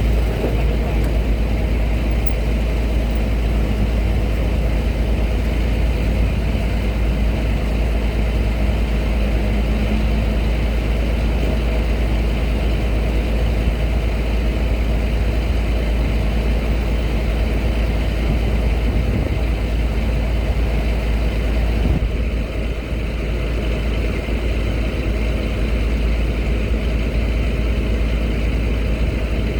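Heavy truck and vehicle engines running steadily with a deep, continuous rumble. Some of the higher-pitched noise drops away about two-thirds of the way through.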